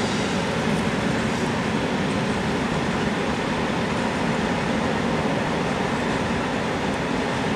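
A freight train of flat wagons loaded with rails rolls steadily past along the track, as one continuous even noise.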